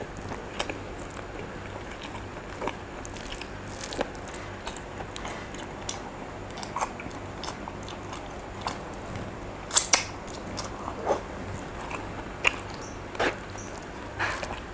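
A person chewing a mouthful of rice and sambal eaten by hand, with scattered short wet mouth clicks throughout, over a faint low hum.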